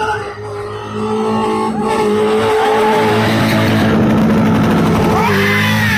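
BMW E30 engine held at high revs while the car spins donuts, its rear tyres squealing and skidding on the tar. The engine note is steady from about a second and a half in, with the tyre squeal rising and falling near the end.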